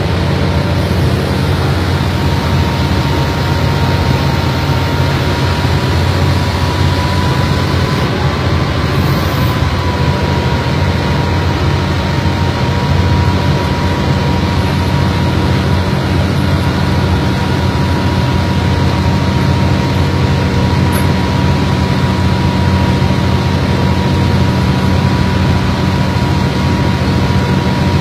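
Purse seiner's engine running with a steady low drone and a steady whine on top, unchanged throughout.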